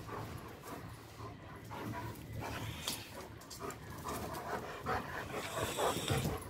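A dog panting quietly, with a few faint scattered clicks.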